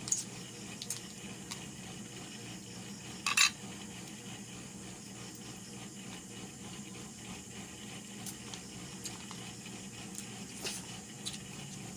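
Scattered light clinks and knocks of dishes and utensils during a meal, with one sharper, louder knock about three and a half seconds in, over a steady low hum.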